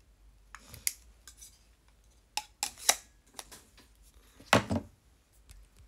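Small hard objects clicking and clinking as they are handled and set down, with a louder clatter about four and a half seconds in.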